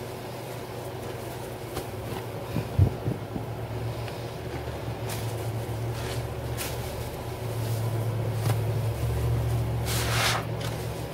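Wet kitchen towel being kneaded and squeezed by gloved hands in soapy sink water: soft squelches and short splashy hisses, the longest wet squish near the end, over a steady low hum. A sharp tap about three seconds in.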